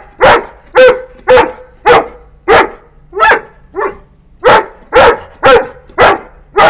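Saint Bernard puppy barking loudly and repeatedly, a little under two barks a second with a brief break about four seconds in: angry territorial barking at a cat it has spotted.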